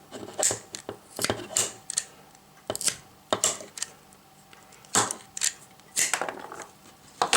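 Ratchet pruning shears working on a branch: about ten sharp clicks and snaps at irregular intervals as the ratchet steps the blade closed, the loudest near the end.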